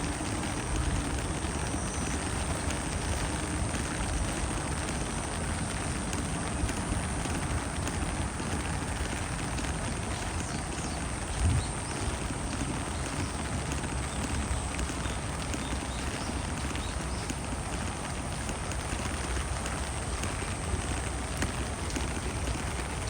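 Steady rain falling, an even hiss, with a low rumble underneath and a short thump about halfway through.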